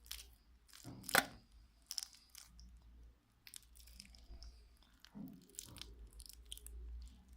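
Hard slime being kneaded and squeezed by hand with hand cream worked into it, giving irregular crackling and crunching, the loudest about a second in.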